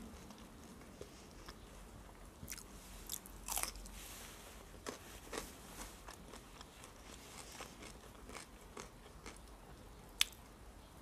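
A person chewing a mouthful of food up close, with soft wet mouth clicks and smacks. There is a single sharp click about ten seconds in.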